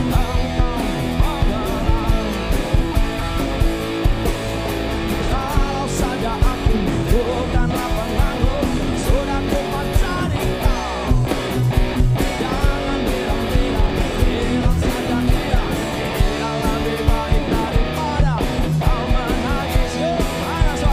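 Live rock band playing, with a drum-kit beat under bass and strummed acoustic and electric guitars.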